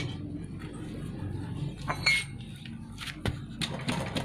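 Hands squeezing and pressing a motorcycle rear tyre's sidewalls to loosen the bead from the rim: scattered light knocks and clicks, with a short high squeak about two seconds in.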